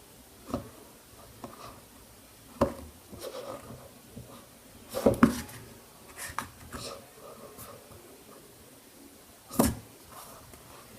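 Plastic fidget cube being handled and clicked: a handful of sharp, irregular clicks spread over the seconds, the loudest about five seconds in and again near the end.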